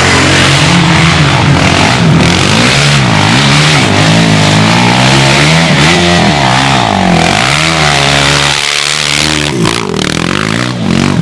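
Quad bike (ATV) engines running loud and revving, their pitch rising and falling repeatedly as the throttle is worked, with a short dip about nine seconds in.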